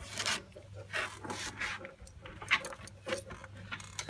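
A hand rubbing and handling the thick fur on a Newfoundland dog's foot, heard as a series of short scratchy rustles.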